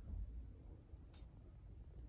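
Quiet room tone: a faint low rumble, with a single faint click about a second in.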